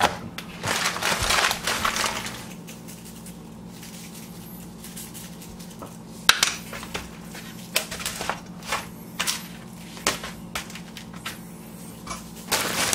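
Paper towel rustling as raw pork steaks are handled on it, then a seasoning shaker shaken over the meat, a string of short sharp rattles and taps. A low steady hum runs underneath.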